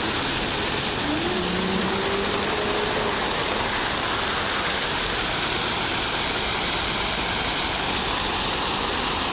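Many water jets of a fountain splashing into its basin: a steady, even rush of water.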